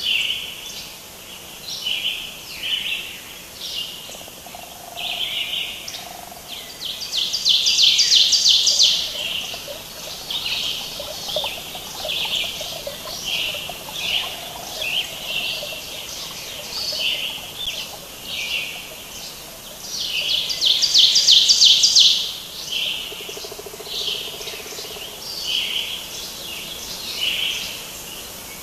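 Birds calling: many short chirps repeating every second or so, with two louder rapid trills, about eight seconds in and again about twenty-one seconds in.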